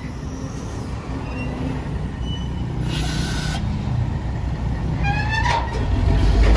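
Heavy truck's diesel engine running, growing louder toward the end. A short hiss comes about three seconds in, and a brief rising squeal about five seconds in.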